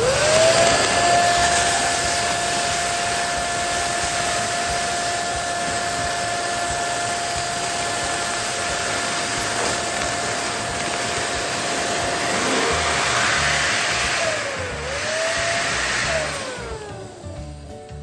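Electric balloon pump inflating a foil balloon: the motor starts suddenly and spins up to a steady high hum with rushing air, dips briefly in pitch about three-quarters of the way through, then winds down near the end.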